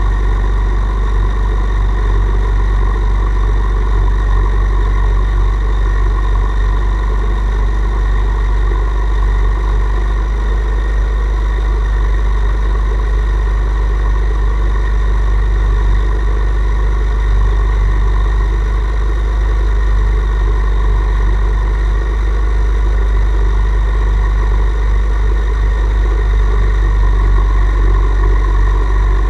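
Hand-made gel-fired live-steam model tug running under way, heard from on board: a loud, steady drone with a low hum and a constant whine above it that does not change over the whole stretch.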